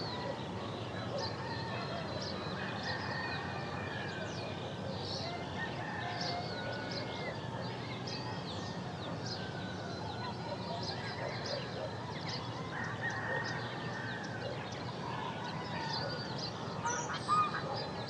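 Forest ambience of many birds calling at once: overlapping chirps and whistled notes over a steady background hiss, with two louder calls near the end.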